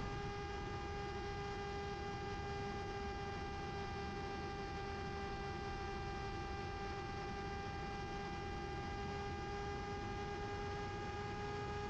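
Electric pusher motor and propeller of a Mini Drak FPV flying wing, heard through the onboard camera as a steady, high, even drone of nearly constant pitch in flight, over a wash of wind noise.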